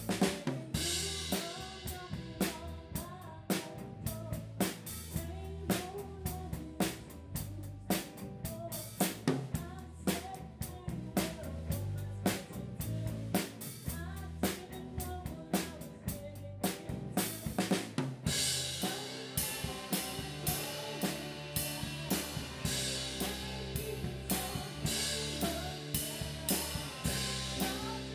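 Live rock band playing, with the drum kit right at the microphone and loudest: snare and bass drum hits over bass and guitar. About two-thirds of the way in, the cymbals come in much heavier.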